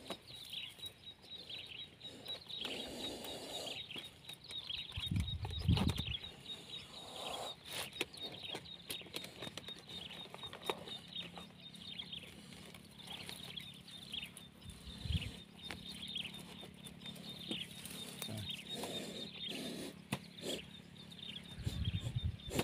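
Short high chirps repeating every second or so from birds or insects in the brush, over soft rustling as a wire-mesh cage trap and a nylon mesh bag are handled, with a couple of low thuds.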